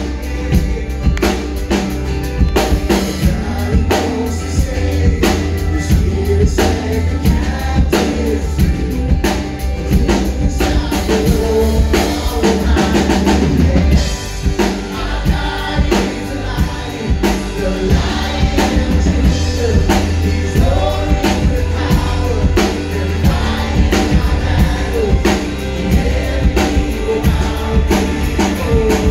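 Live worship band playing and singing: a man's lead vocal over strummed acoustic guitar, a drum kit keeping a steady beat, electric guitar and keyboard. About halfway through the deep bass drops out for a moment before the full band comes back in.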